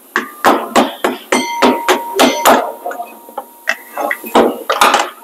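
Screwdriver prying and tapping at a rear brake caliper and pad bracket: an irregular run of about a dozen sharp metal clinks and knocks, some ringing briefly.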